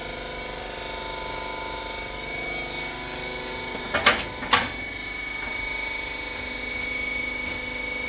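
Wiper rags baler machine running with a steady hum. Two loud, sharp knocks about half a second apart come just after the middle, and a high whine from the machine grows stronger after them.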